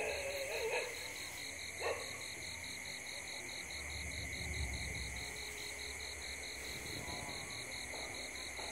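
Night chorus of insects and frogs: a steady high, rapidly pulsing trill over a constant high buzz. A couple of short, lower calls stand out near the start and about two seconds in.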